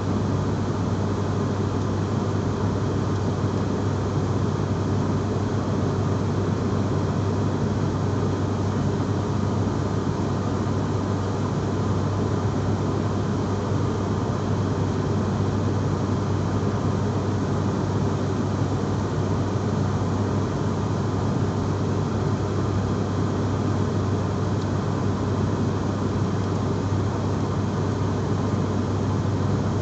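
Steady, unchanging drone of an aircraft's engines, with a strong low hum under a broad rushing noise.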